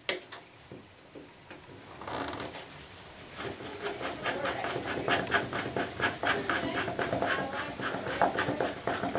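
Metal tool clicking and scraping against an old bathtub faucet knob as it is worked loose, in a quick run of clicks about three or four a second from about three seconds in.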